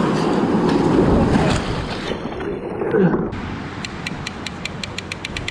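Surf and wind on the microphone. Near the end a rapid, even clicking starts, about six clicks a second.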